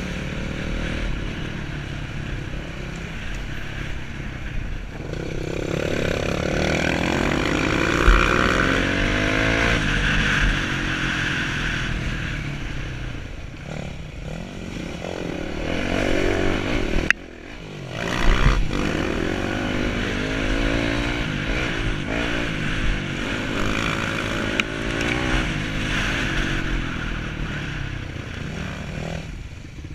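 Yamaha dirt bike engine being ridden, its pitch rising and falling again and again as the throttle is worked. A few sharp knocks from the bike over rough ground stand out, one loudest just after a sudden brief drop in the sound about halfway through.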